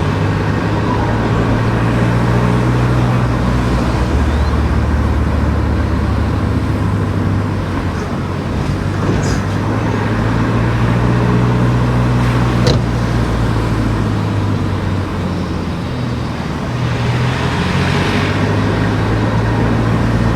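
A car driving on the road, with a steady low engine hum and tyre and road noise whose pitch shifts slightly as speed changes. There is a single sharp click about twelve seconds in.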